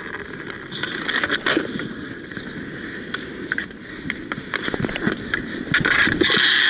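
Inline skate wheels rolling and scraping on a roller hockey rink, with many sharp clacks of sticks and puck; the noise grows louder near the end.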